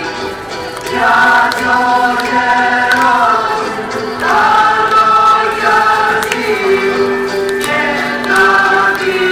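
Greek folk dance song: a voice singing in long held phrases over instrumental accompaniment.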